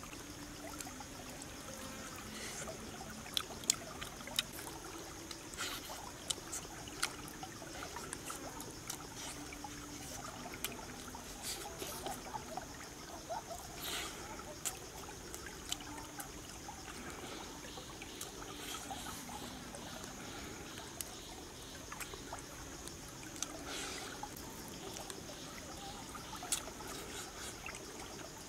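Stream water trickling steadily, with scattered short clicks and smacks of someone eating with their hands.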